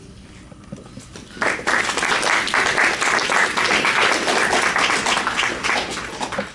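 Audience applauding. It starts about a second and a half in and fades away near the end.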